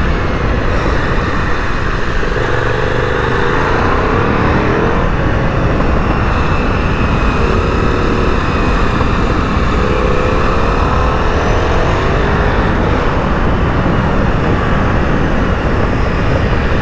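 V-twin motorcycle engine on the move, its note rising and falling several times as the throttle is rolled on and off through bends, under a steady rush of wind.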